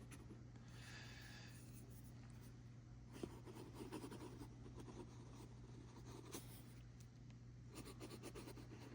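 Faint scratching of a pen nib writing on paper, in short strokes from about three seconds in until near the end, with a couple of light taps, over a steady low hum.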